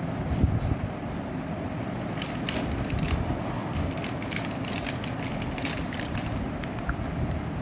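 Steady low rumbling background noise with a run of small sharp clicks and taps from about two to six seconds in, typical of handling noise.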